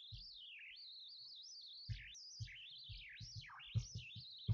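A songbird singing faintly, one long continuous warbling song of quick rising and falling notes. Several soft low knocks sound through it, the loudest near the end.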